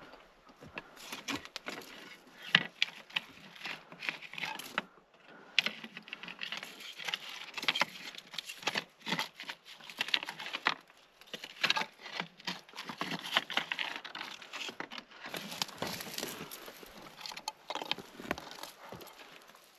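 Irregular crunching steps and rustling of someone moving on foot through snow and brush, with many short crackles and crinkles.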